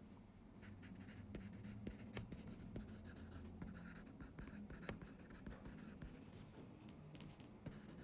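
A stylus writing on a tablet's glass screen: faint, irregular taps and scratches of the pen tip as handwriting is added stroke by stroke.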